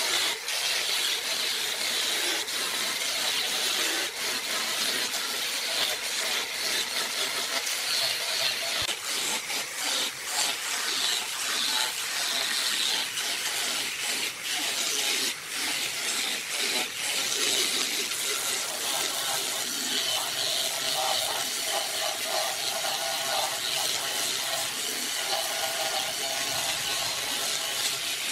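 Electric angle grinder with a sanding drum sanding the curved rim of a turned wooden vase: a steady high hiss of abrasive on wood over the motor's whine, full of short scratchy rasps. About two-thirds of the way through, a lower hum joins in.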